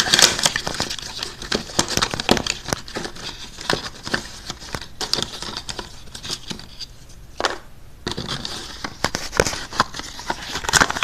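A small paperboard LED bulb box being handled and pried open by hand: a run of crinkling, rustling and sharp clicks from the cardboard, with a short lull about two-thirds of the way through broken by a single click.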